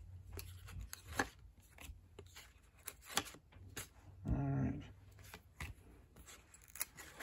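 Cardboard trading cards being flicked and slid one behind another in the hand, a run of light clicks and rubs. A short low vocal sound comes about halfway through.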